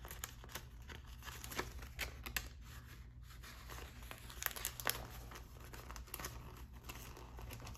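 A thin glassine envelope crinkles and rustles in the hands, with scattered short papery crackles, as a stiff card is worked into it. A low steady hum sits underneath.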